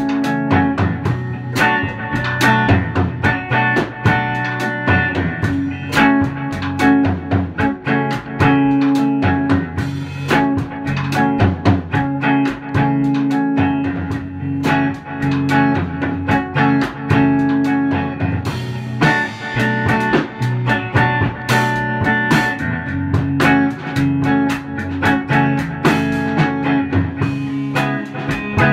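Electric guitar, a Fender Stratocaster through a Fender Princeton Reverb amp, jamming with a drum kit, both playing without a break.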